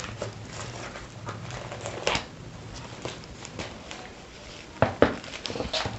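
White plastic sleeve rustling and crinkling as a pen tablet is worked out of it by hand, with a few sharper crackles about two seconds in and near the end.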